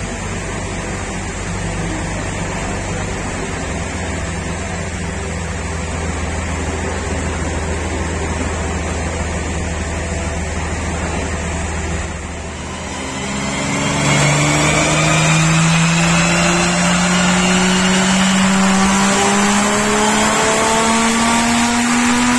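Nissan Patrol 4800 VTC's 4.8-litre straight-six running steadily on a chassis dynamometer. About thirteen seconds in it gets louder and its revs begin to climb slowly and evenly under load, the start of a power run on the rollers.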